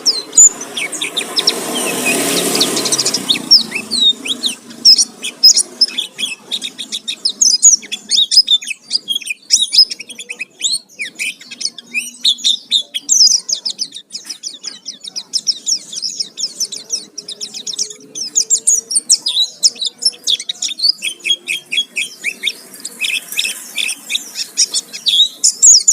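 White-eye (pleci) singing a fast, unbroken stream of high chirps and trills in full, varied song. A loud rush of noise covers the song for the first few seconds.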